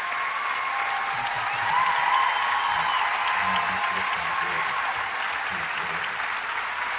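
Crowd applause, a dense steady clapping with a few thin whistles over it.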